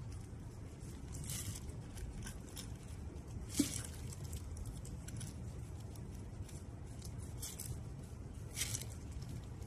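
Metal callus scraper drawn over a cracked heel, scraping off softened dead skin in short scratchy strokes a second or two apart, with one sharp tick about three and a half seconds in. A low steady hum runs underneath.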